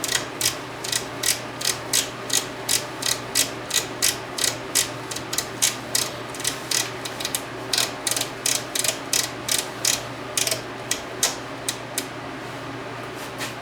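Rotary selector switch on a Yamaha CR-240 receiver clicking through its detents, about two to three clicks a second, as it is turned back and forth to work contact cleaner into its contacts. The clicks stop about a second and a half before the end.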